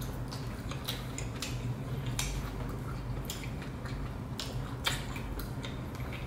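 Close-up chewing of a Big Mac: wet, smacking mouth sounds with many short clicks spread through, over a steady low hum.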